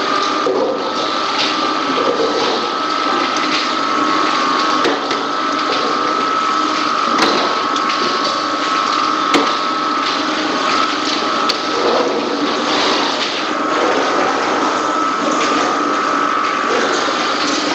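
Poultry processing line running, with overhead shackle conveyor and machinery giving a steady mechanical noise, a steady high whine and a few sharp clicks.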